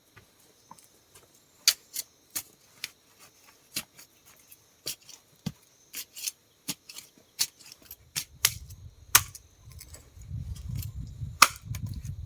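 A run of sharp, irregular clicks and snaps, like small cutting or snapping work, about one or two a second. From about eight seconds in, wind starts buffeting the microphone with a low rumble.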